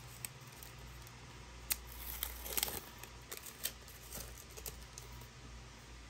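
A thin clear plastic sleeve crinkling and crackling as a small polishing cloth is pulled from it and handled, in scattered short crackles and clicks that are busiest about two seconds in.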